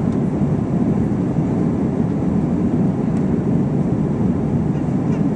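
Steady engine and airflow noise heard inside the passenger cabin of an Airbus A321-231 airliner with IAE V2500 engines.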